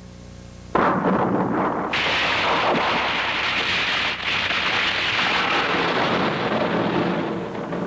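A sudden loud blast about a second in, then a long stretch of rumbling, crackling noise like explosions or thunder.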